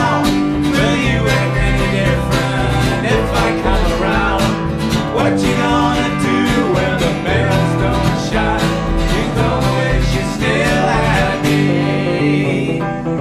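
Live blues band playing a passage without lyrics: red hollow-body electric guitar, acoustic guitar and upright double bass together, with some notes sliding in pitch.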